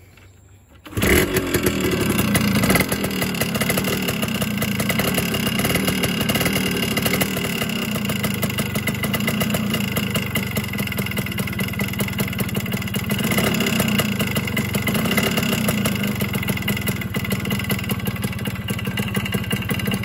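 Yamaha RX100's two-stroke single-cylinder engine starting about a second in, running louder for the first couple of seconds, then idling steadily until it stops at the end. The owner takes its mechanical engine noise as normal for an older two-stroke engine, not a fault.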